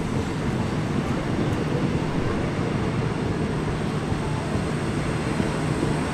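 Passenger carriages of a steam-hauled train rolling past below, their wheels on the rails making a steady low rumble, with a steady low hum joining about a second and a half in.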